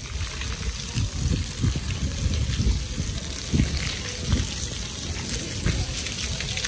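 Steady rain falling on wet stone paving, an even hiss with irregular low rumbles underneath.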